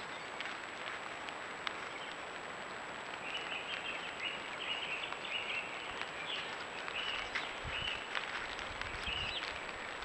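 Small birds chirping in short repeated phrases over a steady hiss and a faint high-pitched electronic whine, with a few light clicks.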